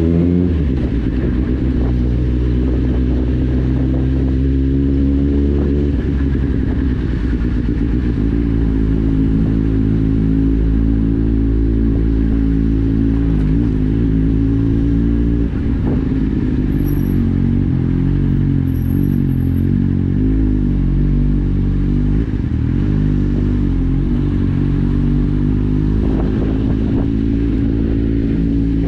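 Kawasaki Z750's inline-four engine through an Akrapovic exhaust with the dB killer removed, heard from the rider's seat while riding at low, steady revs. The revs fall in the first second, then hold fairly even with small rises and dips.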